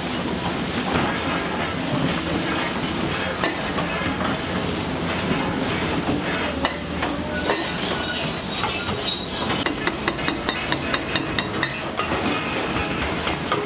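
Hydraulic demolition excavator with a crusher attachment biting into reinforced concrete, with steel rebar scraping, screeching and clinking over the running machine. Near the end comes a quick run of sharp metallic clicks.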